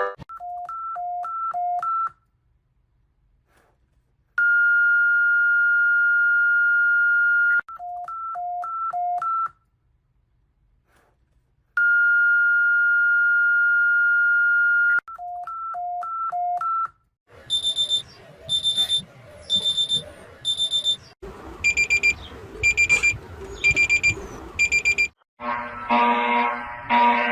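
Emergency Alert System alarm sequences played as synthetic beeps. Quick runs of short beeps alternate between a higher and a lower pitch, and twice a single high beep is held steady for about three seconds, with short silences between. In the last third, denser pulsing beep patterns sound over a hissy background.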